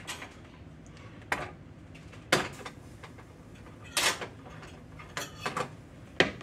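Kitchen utensil and dishes knocking and clinking: a spoon against a glass measuring cup and plastic bowl, with about seven short, sharp knocks spaced a second or so apart and faint scraping between them.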